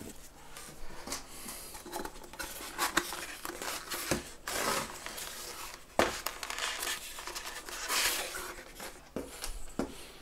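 Hands handling EPO foam airframe parts and small plastic pieces on a tabletop: irregular rubbing, rustling and light clicks, with sharper knocks about four and six seconds in.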